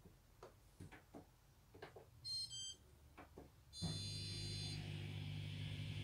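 Indesit dishwasher's program knob clicking as it is turned, then the machine's electronic beep: a short one about two seconds in and a longer one near four seconds. A steady low hum starts with the second beep. The owner takes the beeping for a computer fault of some sort.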